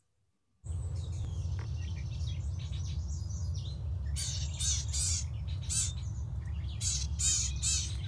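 House wren held in the hand giving harsh, scolding chatter in short repeated bursts, louder and more frequent from about halfway through, over a steady low rumble. The sound starts after a brief moment of silence.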